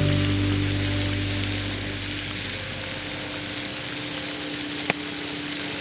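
Bacon sizzling as it fries in a pan, a steady crackling hiss. A low hum fades out over the first few seconds, and there is one sharp tap about five seconds in.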